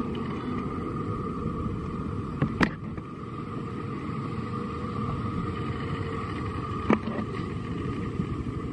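A steady low rumble with a faint, steady higher hum over it, broken by two sharp clicks about four seconds apart.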